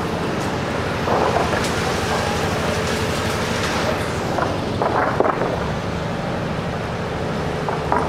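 Steady engine and road-traffic noise with a low hum, with brief louder sounds about a second in and again about five seconds in.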